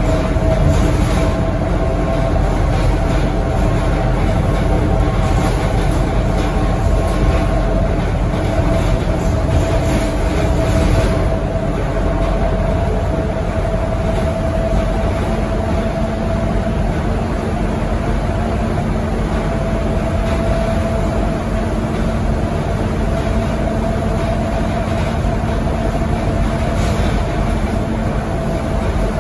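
Cabin noise of a Scania K230UB single-decker bus under way: the five-cylinder diesel and road noise make a steady low rumble, with a steady whine held over it.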